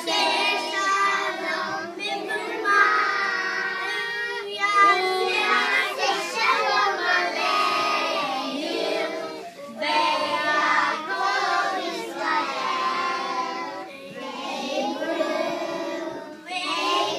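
A small group of young children singing a song together, in phrases with short breaks between.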